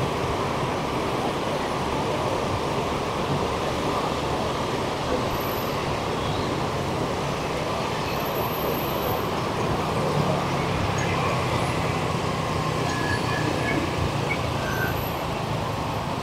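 Heavy city street traffic, mostly motorbikes with some cars: a steady, unbroken mix of engines and tyre noise, with an engine hum growing a little stronger around the middle.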